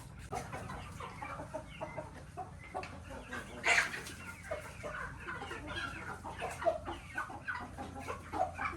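A flock of chickens clucking, with many short calls overlapping; one call stands out louder a little under four seconds in.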